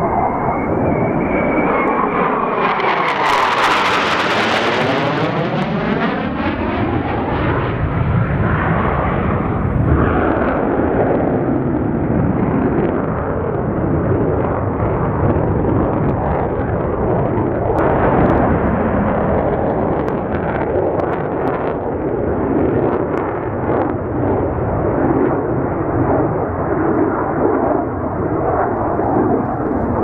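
The twin General Electric J79 turbojets of an F-4EJ Phantom flying by. A high whine in the first couple of seconds gives way to a loud roar with a sweeping, swirling tone as the jet passes. A continuous loud jet roar follows as it banks away.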